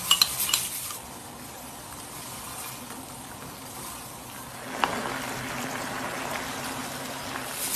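A pot of broth with chickpeas bubbling at a boil, with the flour-and-oil thickener just stirred in. A few sharp utensil taps come in the first second and one click comes about five seconds in. After that click the bubbling hiss gets louder.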